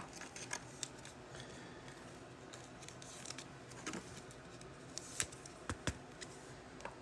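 Trading cards being handled: a few soft scattered clicks and slides of card stock, with a couple of sharper ticks about five to six seconds in.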